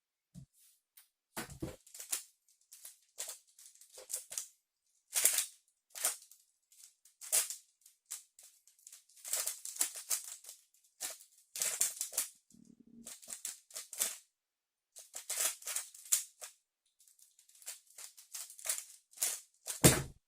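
A 3x3 Rubik's speedcube being turned fast, giving bursts of plastic clicking and clacking with short pauses between them. A louder thump comes near the end as the solve stops.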